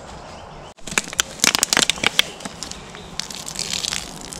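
Sharp crunching and crackling from feet on dry fallen leaves and twigs beside a burnt-out campfire, loudest from about one to two and a half seconds in, then a softer rustling crunch.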